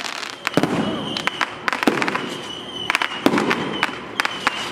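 Fireworks going off: a rapid, uneven series of sharp bangs and crackles, with a high steady whistle that comes and goes several times.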